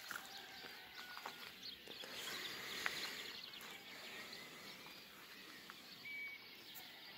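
Dawn chorus of songbirds, faint: many overlapping short chirps, trills and whistles from several birds.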